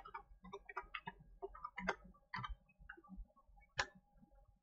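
Faint, irregular computer keyboard keystrokes as a password is typed, with one sharper click near the end that submits the login.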